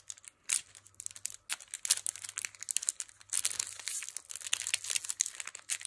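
Foil Pokémon Fusion Strike booster pack crinkling and crackling as fingers tear at its crimped top: scattered crackles at first, then a dense run of sharp crackles from about a second and a half in. It is a pack that is hard to open.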